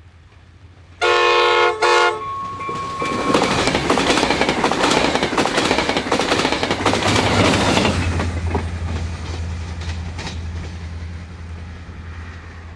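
New Mexico Rail Runner Express commuter train passing close by: its horn sounds one long blast and one short blast about a second in, then the bi-level coaches rush past with wheels clicking over the joints of jointed rail. Near the end a deep diesel drone from the MP36PH-3C locomotive swells as it goes by, then fades.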